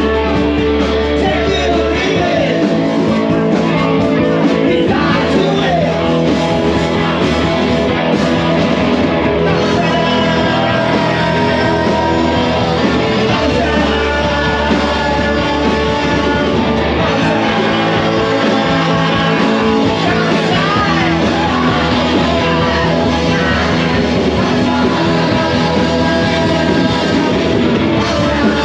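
Live rock band playing loudly, with a singer over the band.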